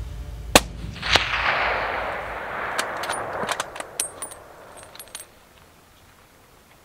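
Single hunting-rifle shot about half a second in, its report fading over several seconds across the mountain valley. Then a run of sharp metallic clicks as the rifle's bolt is worked to chamber another round.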